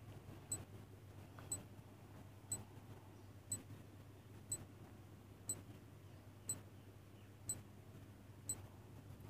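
Countdown timer ticking like a clock, one short faint tick each second, nine ticks in all.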